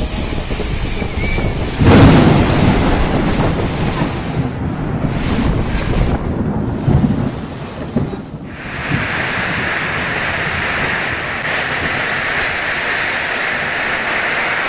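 Windstorm: strong gusting wind buffeting the microphone, with a loud gust about two seconds in. After a short lull near the middle it settles into a steady hiss.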